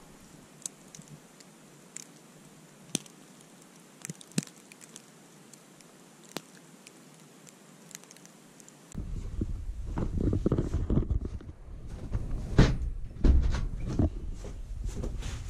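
A faint hiss with a few isolated sharp clicks, then about nine seconds in a sudden jump to loud rumbling handling noise with knocks and steps as a door is opened and someone walks out through it.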